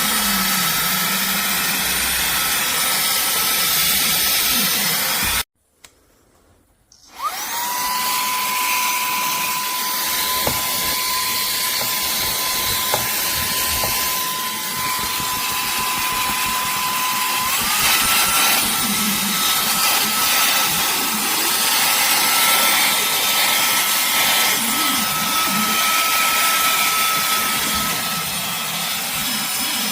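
Cordless handheld vacuum cleaner running with a steady motor whine. It switches off about five seconds in, restarts a second and a half later with the whine rising as the motor spins up, and steps up to a higher pitch about halfway through.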